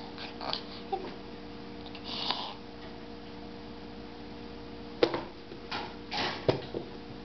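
A baby's hands slapping and patting a plastic high-chair tray: one sharp slap about five seconds in, then several more knocks a second or so later. A steady hum runs underneath, with a few soft short noises in the first half.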